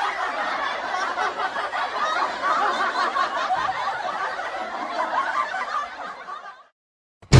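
Laughter that fades out about six and a half seconds in. After a short silence, music starts right at the end.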